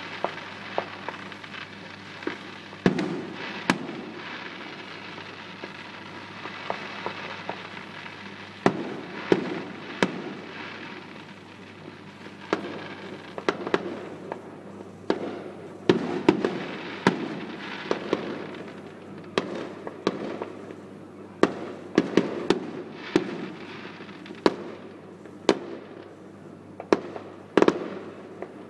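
Distant fireworks display: irregular sharp bangs of aerial shells bursting, each trailing off in a rumbling echo, over a continuous background hiss. The bangs come more often in the second half.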